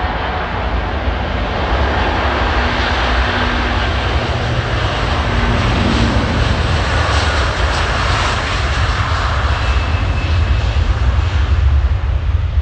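Jet engines of a twin-engine widebody airliner moving along the runway, a steady rushing noise with deep rumble that grows gradually louder and peaks near the end.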